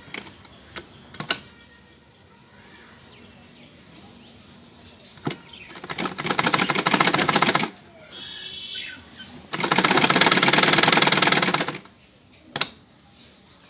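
Black domestic sewing machine stitching cotton fabric in two runs, about a second and a half and then about two seconds long, each a rapid, even rattle of needle strokes. A few sharp clicks come near the start and one comes near the end.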